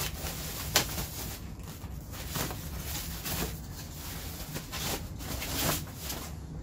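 Plastic bag rustling and crinkling in the hands as it is pulled off a monitor stand, in irregular swishes with a sharp click about three-quarters of a second in.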